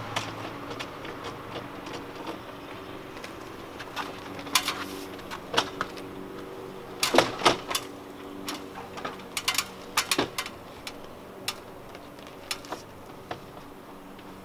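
Irregular metallic clicks and clacks of bolts and mounting brackets being fiddled into place while an awning is fitted, busiest in the middle stretch, over a faint steady hum.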